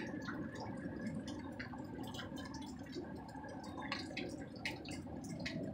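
A steady low rumbling drone from the sky with a faint high tone over it, which the recorder insists is not an airplane and not a normal sound in the sky. Many short sharp ticks, like drips, sound throughout.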